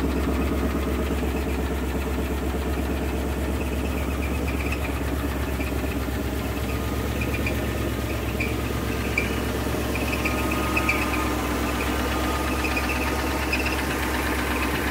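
1972 Ford F-350 wrecker's engine idling steadily, running again on a newly fitted fuel pump.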